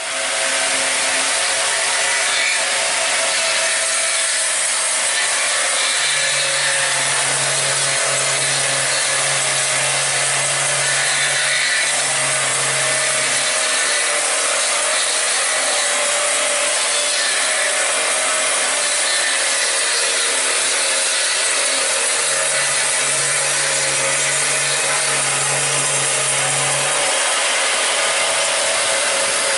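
Industrial machine saw cutting continuously, a steady rasping noise with no pause. A low hum comes in twice, for about seven seconds starting some six seconds in, and for about four seconds around the two-thirds mark.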